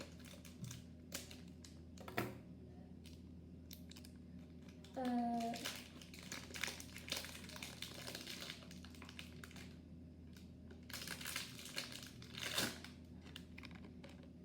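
Toy packaging crinkling and rustling as it is handled and unwrapped, with scattered clicks, in two busier stretches in the middle and near the end. A short vocal sound about five seconds in.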